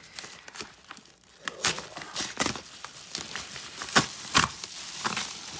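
Yellow paper padded mailer crinkling and tearing as it is pulled open by hand. A run of sharp, irregular crackles starts about a second and a half in, loudest about four seconds in.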